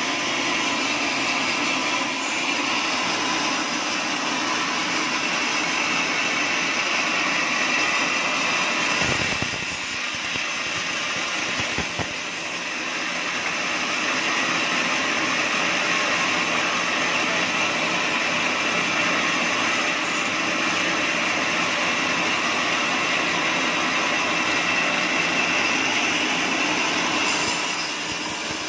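Electric-motor-driven band sawmill cutting lengthwise through a teak block: a steady, loud machine whine over the hiss and rasp of the blade in the wood. It dips briefly, with a low knock, about a third of the way in.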